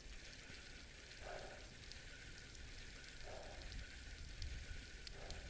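Bicycle tyres rolling on a rough paved lane: a faint, even crackling hiss with scattered light ticks over a low rumble.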